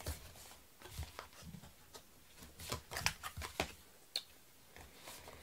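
Cardstock box blank being handled and unfolded on a work mat: scattered light paper rustles and taps, with a quick run of them about three seconds in.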